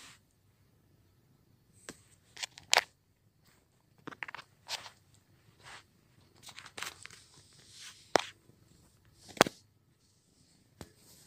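Scattered rustling and scraping right at the microphone, with several sharper crackles standing out, from a kitten shifting against bedding.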